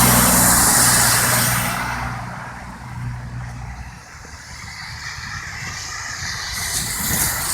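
Semi-truck passing close on a snowy, slushy road: engine drone and the hiss of its tyres through slush, loud at first and fading away over about four seconds. Near the end another vehicle's tyre hiss starts to build.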